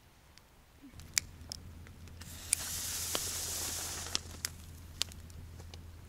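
Campfire of thick split wood burning, with sharp pops and crackles at irregular moments and a rushing hiss for about two seconds in the middle.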